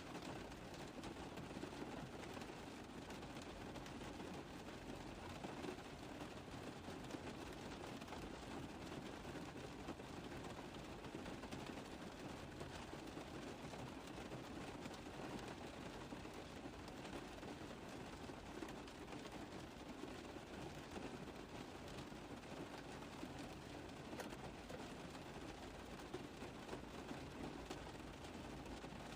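Rain falling steadily on a car roof: a dense, even spatter of drop hits that keeps on without let-up.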